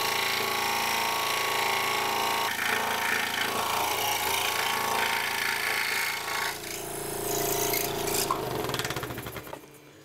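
Scroll saw running with its reciprocating blade cutting through a wooden board. Near the end the saw runs down and stops.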